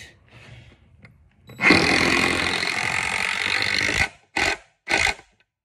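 Power drill with a hex bit driving a construction screw into wooden framing lumber: a steady run of about two and a half seconds, then two short bursts to seat the screw.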